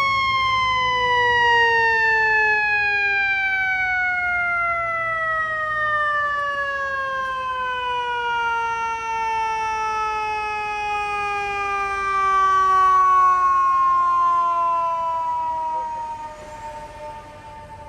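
FDNY Rescue 1 heavy rescue truck's mechanical siren winding down in one long, slow, falling wail, fading out near the end.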